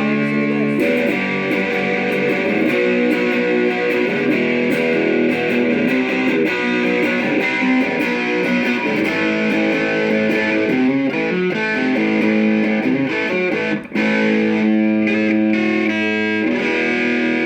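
Electric guitar played through a Joyo AC Tone JF-13 overdrive pedal, chords held and changed with an overdriven tone. The playing cuts out for a moment about fourteen seconds in, then carries on.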